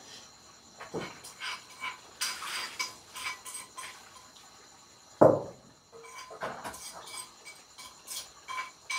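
Scattered clinks and knocks of kitchen pots and metal utensils, with one louder clank a little after five seconds in.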